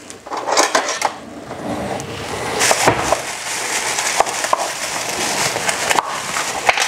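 Handling noise as a white foam takeaway container is moved and opened on a kitchen counter: scattered sharp clicks and knocks, with rubbing and rustling between them.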